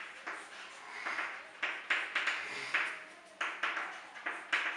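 Chalk writing on a chalkboard: a string of short, sharp scratches and taps, about three or four a second and irregularly spaced, as each letter is stroked onto the board.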